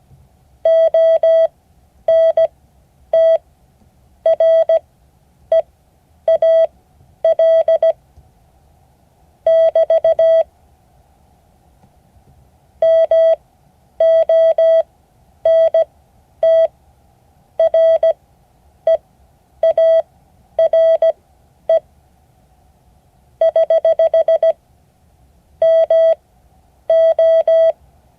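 Morse code: a steady mid-pitched beep keyed on and off into dots and dashes. The characters come one after another with clear gaps between them, as in code practice.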